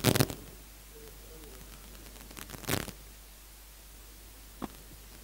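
A few brief knocks and rustles over a steady background hiss: a loud clatter at the start, another cluster about two and a half seconds in, and a single click near the end.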